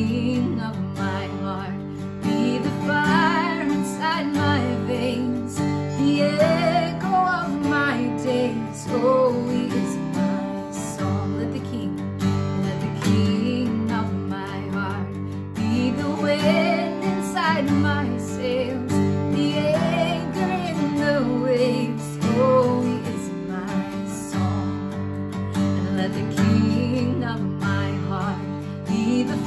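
A woman singing a worship song while strumming a Guild acoustic guitar.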